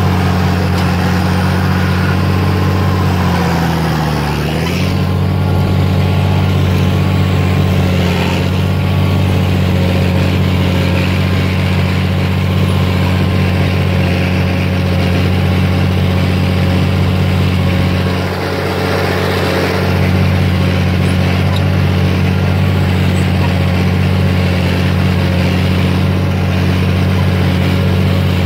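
Oliver 1855 tractor's six-cylinder turbo diesel running steadily at working speed. About four seconds in, its pitch sags briefly, then picks back up.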